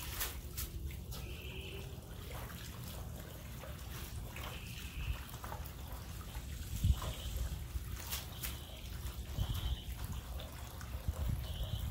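Water from a garden hose trickling and splashing into a shallow metal tray as leafy greens are rinsed by hand, with scattered light clicks and knocks from handling. A short high call repeats every second or two in the background.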